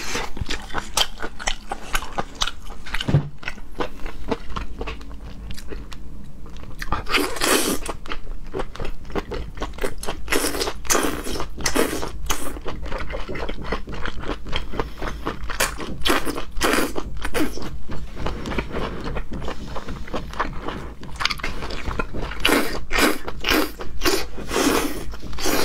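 Close-up eating of whole octopus in chili-oil sauce: wet chewing and sucking of the tentacles, a steady stream of short sticky smacks and clicks with louder slurps every second or two.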